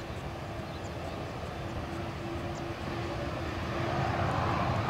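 Boeing 737-300's CFM56-3 turbofan engines running as the jet moves along the runway: a steady hum and rumble, with a rush that grows louder near the end.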